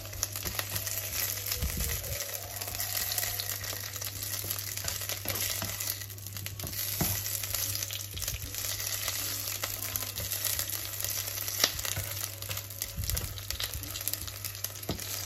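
Scallion segments sizzling in hot oil in a nonstick frying pan, stirred and pushed around with a plastic spatula, with a few light knocks of the spatula on the pan.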